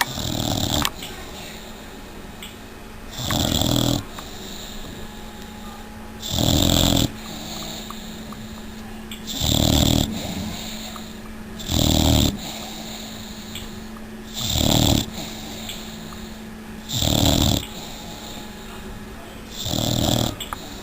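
Six-month-old Old English Bulldog puppy snoring in her sleep. Eight short snores come at an even pace, one about every two and a half to three seconds, each lasting under a second.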